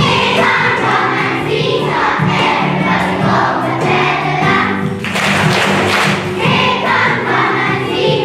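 A group of children singing together over a musical accompaniment.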